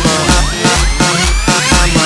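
Electronic dance music with a steady bass-drum beat of about three thumps a second, short synth notes and a slowly rising synth tone.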